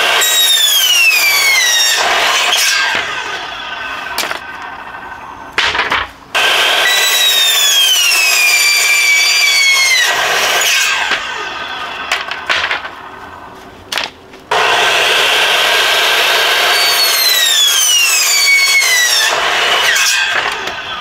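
Power miter saw cutting through pallet boards three times, each cut followed by the motor's whine falling in pitch as the blade winds down. Short knocks of boards between cuts.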